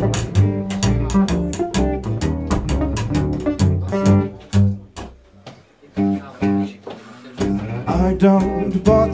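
Gypsy jazz combo playing: acoustic guitar with a plucked double bass line. About halfway through, the band drops to a few sparse notes for a couple of seconds, then comes back in full.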